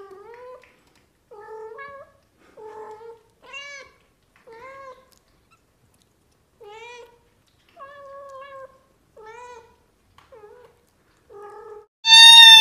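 Kittens mewing: about a dozen short, soft, high mews roughly a second apart. Near the end a kitten gives one loud, long meow that falls in pitch.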